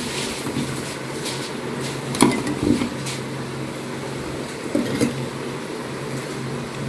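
Steady low machine hum with room hiss throughout. A few soft knocks and scrapes come as onion-ginger-garlic paste is scraped from a bowl onto raw mutton pieces in a steel plate, the clearest about two seconds in and another near five seconds.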